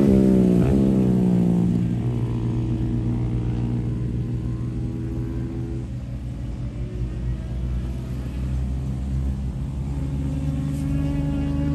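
Motorcycle engine running on a track: its note falls over the first couple of seconds as the bike goes past and eases off, then carries on steadier and a little quieter, and climbs again near the end.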